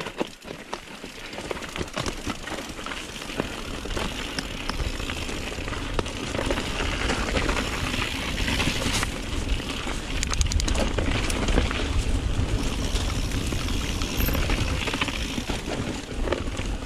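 Mountain bike ridden over a rough trail: tyre noise, with rattles and knocks from the bike and a low wind rumble on the microphone, growing louder over the first few seconds and then holding steady.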